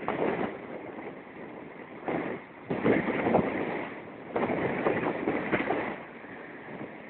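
Wind buffeting a phone's microphone over rough surf breaking on a beach, the noise coming in uneven gusts of a second or so.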